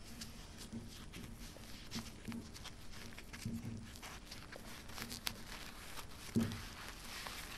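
Soft, intermittent rustling and rubbing of a paper napkin as it is rolled up tightly by hand against a sheet of paper on a table.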